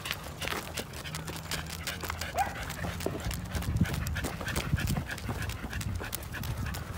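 Corgi panting as it trots on asphalt, with a stream of quick ticks and scuffs from its claws and the walker's footsteps on the pavement.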